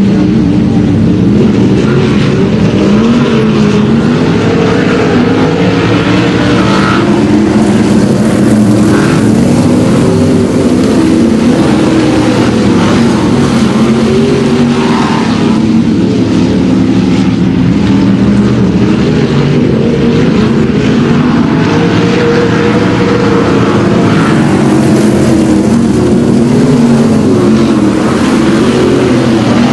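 A pack of winged sprint cars racing on a dirt oval, several engines revving at once, their pitch rising and falling as the cars work round the track. Loud throughout.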